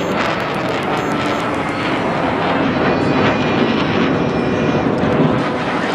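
Fighter jet flying overhead: a steady, loud jet-engine roar.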